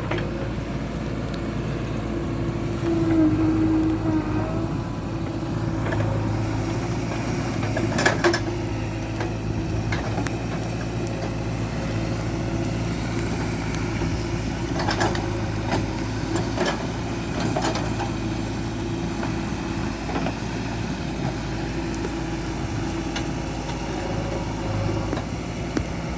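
Backhoe loader's diesel engine running steadily, with a few sharp knocks from the working machine, the loudest about eight seconds in and two more around fifteen and seventeen seconds.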